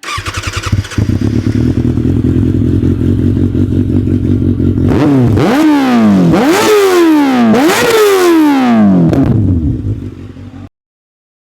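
Motorcycle engine starting with a quick rattle, settling into a steady idle, then revved in three sharp throttle blips that each rise and fall back. It cuts off suddenly near the end.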